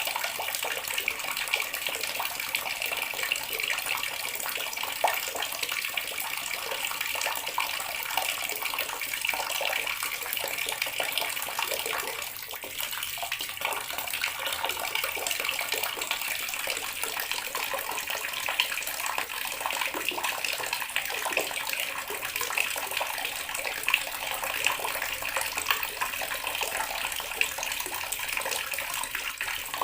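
Water running steadily from a tap and splashing, a continuous even hiss.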